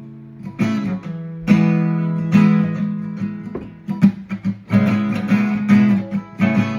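Acoustic guitar strumming chords, a fresh strum about every second, each chord left ringing.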